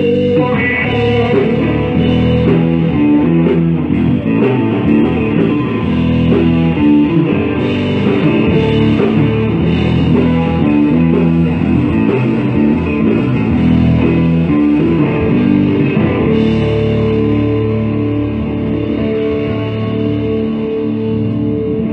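Blues-rock band playing an instrumental passage led by electric guitar, with bass guitar and drum kit.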